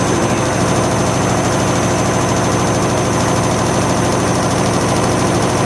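German washing machine on its spin cycle, running fast with a steady hum and a rapid, even pounding from the shaking drum and cabinet. It is still shaking on its newly repaired dampers.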